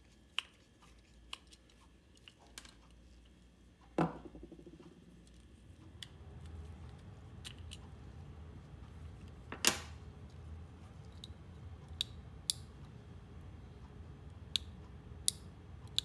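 Small clicks and knocks of plastic and metal parts as an ME-8111 limit switch is taken apart by hand with a screwdriver, the contact block coming away from the switch housing. Two louder knocks, about four seconds in and near the middle, stand out among scattered light ticks.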